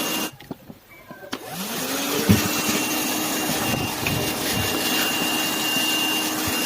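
Black & Decker AV1205 12-volt car vacuum cleaner running with a steady rushing suction noise. Near the start the sound drops out for about a second, then the motor comes back with a rising whine that settles into a steady hum. There is a single light knock about two seconds in.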